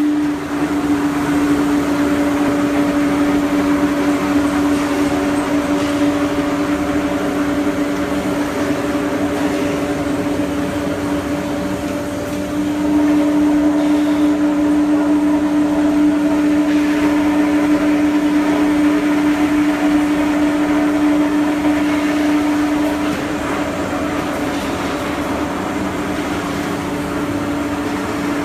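Pillow filling machine running: a steady motor hum over an even hiss. The hum grows louder about twelve seconds in and eases back about ten seconds later.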